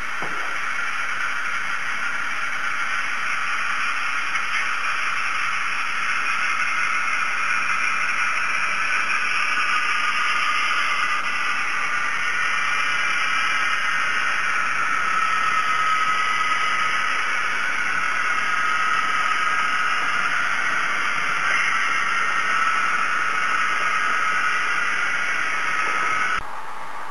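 Model freight train rolling past on layout track: a steady rushing hiss of wheels on rails with a faint whir, which drops off sharply near the end.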